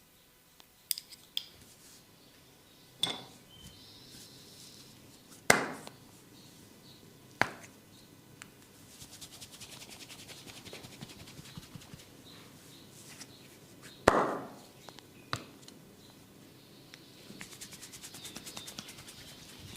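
Barber's hands working a head and neck massage: a handful of sharp smacks at irregular intervals, with stretches of fast, fine crackling between them.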